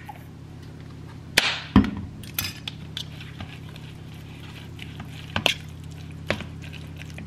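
Mayonnaise squeezed from a plastic squeeze bottle into a bowl, then a fork stirring tuna salad and clinking against the bowl a few times, the loudest knock about two seconds in.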